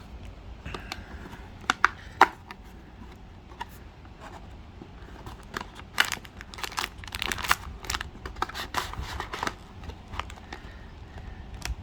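A sealed trading-card hobby box being unwrapped and opened by hand: tearing and crinkling of its wrapping, with scattered sharp clicks and taps of cardboard being handled, busiest past the middle.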